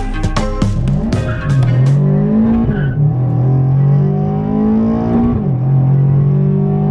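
Music for the first two seconds, then a car engine heard from inside the cabin, accelerating: its pitch climbs, drops suddenly twice as the gears change, and climbs again after each shift.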